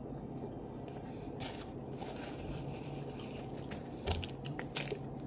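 Steady low background hum with a few faint clicks, and a soft knock about four seconds in.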